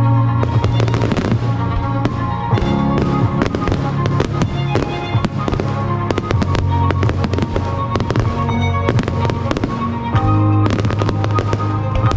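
Fireworks going off in quick succession, many bangs and crackles, over loud background music with a heavy bass.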